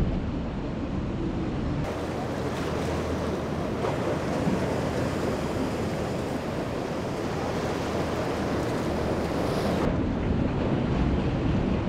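Rough surf washing and breaking, with wind buffeting the microphone; the low wind rumble is heavier in the first couple of seconds and again near the end.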